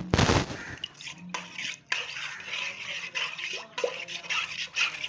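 Kitchen cloths being stirred and rubbed in a bowl of water: irregular wet swishes and scrapes with a few light knocks against the container, loudest at the very start.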